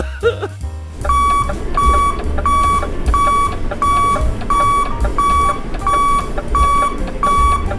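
Alarm clock beeping: a short high electronic beep repeated about ten times at an even pace, roughly three beeps every two seconds, starting about a second in.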